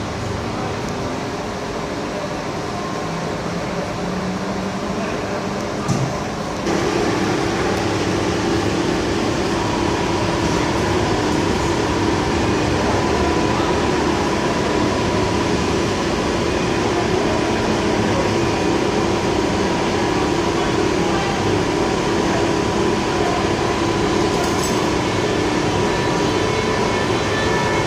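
Electric train in a railway station, its machinery giving a steady hum. About six and a half seconds in, the hum steps up suddenly, with steady low tones and a higher whine that comes in a few seconds later.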